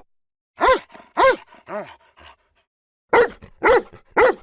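A dog barking: three barks, the third quieter and lower, then a pause of about a second, then three more loud barks.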